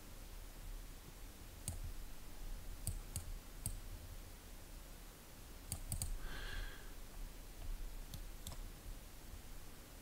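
Faint, scattered computer mouse clicks, single clicks spaced irregularly across the stretch, over a low steady hum.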